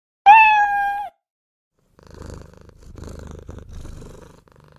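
A cat meows once, a short steady call of under a second, then purrs in three pulsing stretches, in and out.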